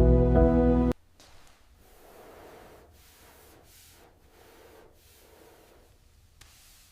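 Background music of sustained chords that cuts off abruptly about a second in, followed by faint, soft rustling noises.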